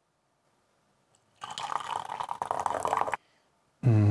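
Brewed oolong poured from a porcelain gaiwan into a glass tea pitcher: a steady stream of liquid starting about a second and a half in and lasting about two seconds, decanting the first 10-second infusion. A brief voice sound starts right at the end.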